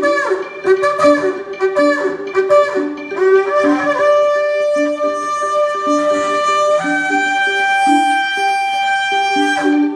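Shofar (ram's-horn trumpet) blown in long held notes, rising to a higher held note about seven seconds in and breaking off near the end, over music with a steady repeating accompaniment.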